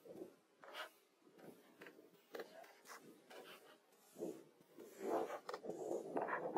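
Stones rubbing and scraping against each other as they are handled and set in place: short, irregular scrapes, busiest and loudest about five seconds in.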